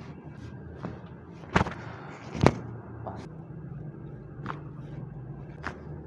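Short sharp cracks and thuds of chiropractic spinal adjustments, the joints popping under quick thrusts to the neck and back, about six in all, the loudest around two and a half seconds in.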